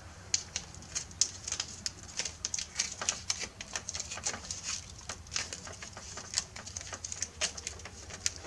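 Blue painter's tape crackling and clicking as it is handled and wrapped around wire ends, in quick irregular crinkles, several a second.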